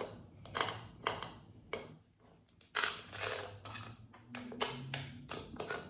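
Close-up mukbang eating sounds: a string of sharp wet mouth clicks and smacks while chewing, with a brief pause about two seconds in.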